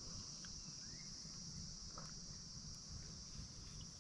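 Steady high-pitched chorus of night insects, over a low, constant rush of river water, with a few faint clicks.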